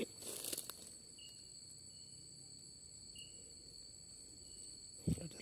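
Night insects, crickets among them, trilling steadily at a high pitch, with a short chirp recurring every couple of seconds. Footsteps rustle through dry leaf litter in the first second, and two low thuds come about five seconds in.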